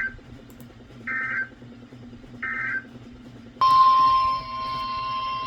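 Three short EAS (SAME) digital data bursts about a second and a quarter apart: the end-of-message code that closes a weather radio alert. About three and a half seconds in, the steady NOAA Weather Radio warning alarm tone starts, announcing the next warning.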